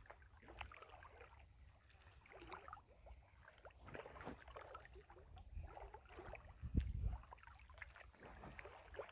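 Faint sloshing and splashing of shallow water stirred up by people working a fishing net, with one louder low thump about seven seconds in.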